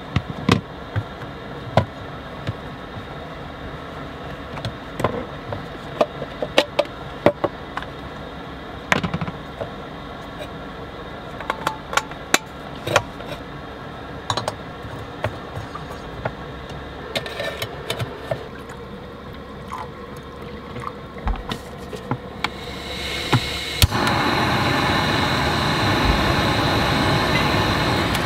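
Irregular clicks, clinks and knocks of Jetboil camp-stove parts being handled and fitted together, with the burner screwed onto its fuel canister. Near the end a steady, louder rushing noise sets in.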